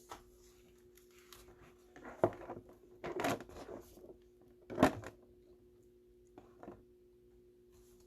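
Trading cards and plastic sleeves being handled: a few short rustles and clicks, the loudest about five seconds in, over a faint steady hum.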